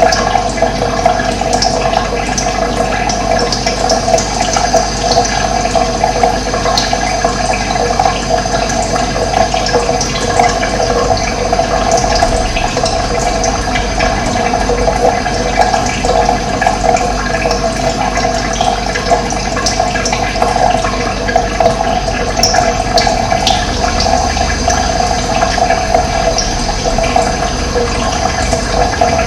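Running water, a steady loud rush of flowing water.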